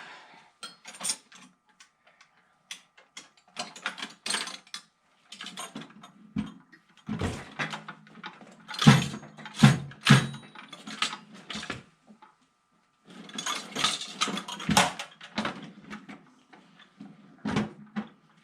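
Metal toolbox drawer full of loose tools being pushed and worked, with irregular clanks and rattles of metal tools inside it, the loudest clanks about halfway through.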